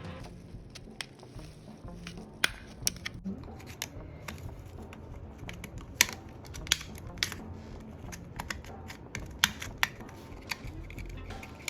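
Irregular sharp clicks and snaps, a few much louder than the rest, over a low steady hum.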